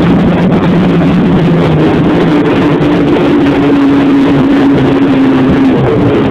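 Snowmobile engine running loud and steady under a rush of noise. Its note shifts higher about halfway through and rises again near the end as the throttle changes.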